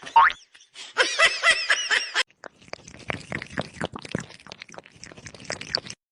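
Laughter in short irregular bursts.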